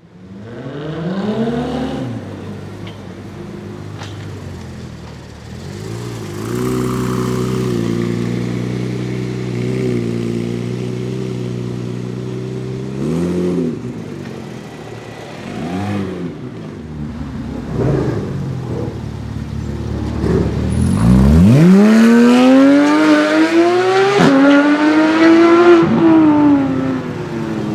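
Porsche 991 GT3's flat-six through an iPE titanium exhaust: a few short throttle blips and a steady spell of running, then about 21 seconds in, a long, loud acceleration whose pitch climbs, holds high and falls away near the end.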